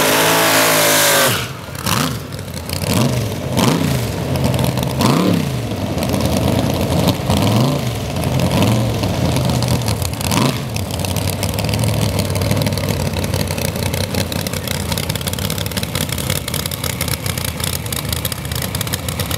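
A front-engine nostalgia dragster's supercharged V8 at full throttle for about the first second, its pitch falling. Then comes a series of short, sharp throttle blips, and from about eight seconds in it settles into a steady idle.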